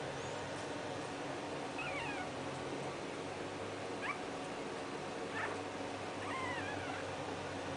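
Newborn puppies giving a few faint, high, thin squeaks while crawling in the litter, over a steady low background hum.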